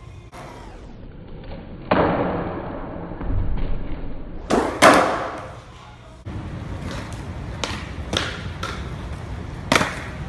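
Skateboard deck and wheels clacking and thudding on the ground as freestyle tricks are landed: a heavy impact about two seconds in, a double hit near the middle, a few lighter clacks, and another sharp hit near the end, over the rumble of rolling wheels.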